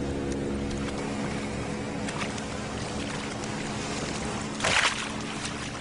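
Motorboat engine running with a steady drone, and fish splashing as they leap and hit the water: a small splash about two seconds in and a loud one near five seconds. The fish are leaping in fright at pressure waves from the propeller.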